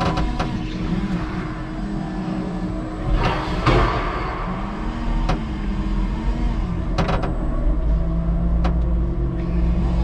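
5-ton electric forklift driving and turning with a loaded pallet: a steady motor hum whose pitch rises and falls with speed, with several sharp knocks and a clatter, loudest about three and a half seconds in.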